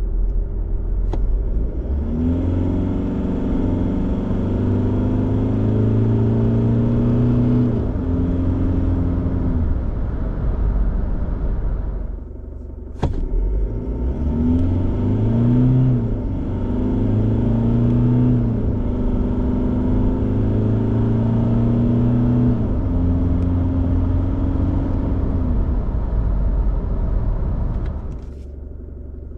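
The 2024 Isuzu D-Max X-Rider's 3.0-litre four-cylinder turbo-diesel accelerating hard in two runs, split by a short lull about twelve seconds in. The engine note bends up and drops back as the six-speed automatic shifts through its gears.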